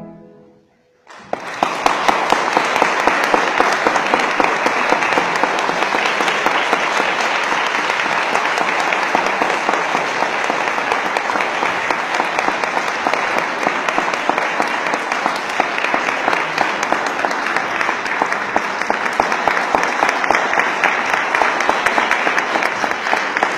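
The music's last chord dies away, then after about a second of near silence an audience breaks into steady applause that carries on without letting up.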